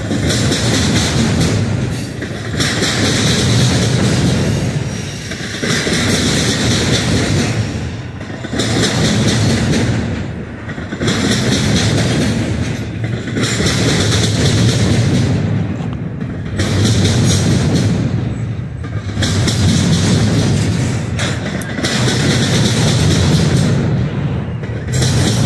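Loaded double-stack intermodal well cars of a freight train rolling past at close range: a steady rumble and clatter of steel wheels on rail. The noise swells and dips every two to three seconds as each car goes by.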